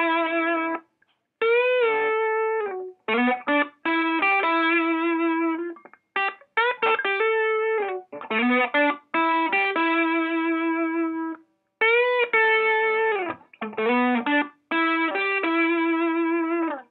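Outro music: a solo electric guitar playing long held notes that slide into pitch, in short phrases broken by brief silences.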